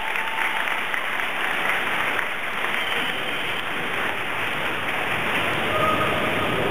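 Spectators applauding steadily after a dive.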